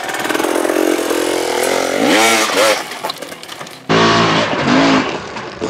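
Dirt bike engine running and revving in quick rising and falling bursts as the bike climbs a steep ramp. About four seconds in, it cuts abruptly to another loud rev.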